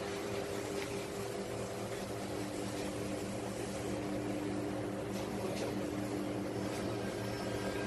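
Forklift running with a steady, even hum while it carries a loaded pallet, with a couple of faint clicks about five seconds in.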